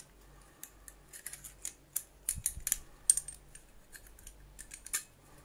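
Pliers gripping and turning a small nut on a vacuum cleaner's plastic handle section: a run of irregular small metal clicks and snips, busiest between about two and three seconds in.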